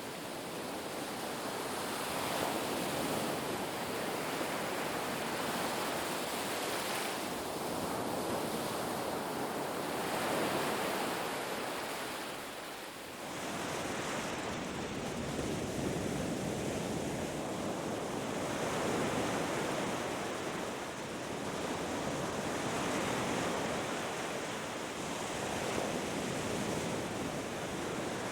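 Ocean waves breaking and washing up on a beach, a continuous rushing surf that swells and eases every few seconds, with a brief lull about halfway through.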